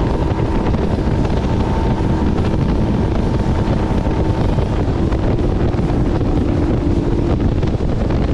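Bass boat's outboard motor running at cruising speed, its steady drone half buried under heavy wind buffeting the microphone and water rushing past the hull.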